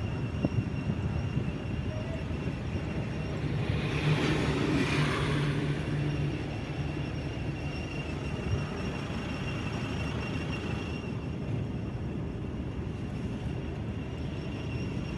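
Toyota Fortuner driving at low speed: a steady road and tyre rumble with a faint high 'chee chee' squeal from the left wheel. The owner suspects a wheel bearing, or else the differential. The rumble swells briefly about four seconds in.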